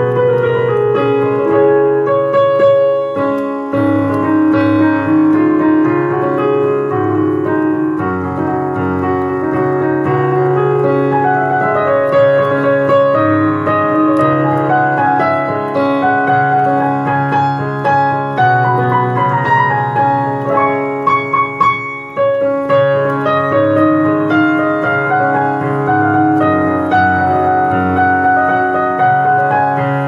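Instrumental background music led by a keyboard, with held chords over a steady bass line.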